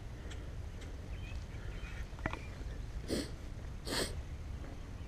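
Two short sniffs close to the microphone, about a second apart, over a low steady rumble.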